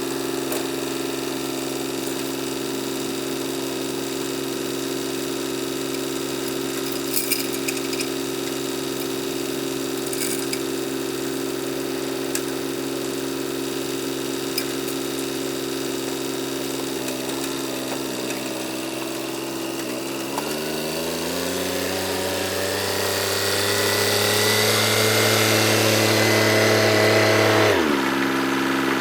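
An engine running steadily at idle, then revving up and holding at higher speed under load for several seconds before dropping back to idle near the end.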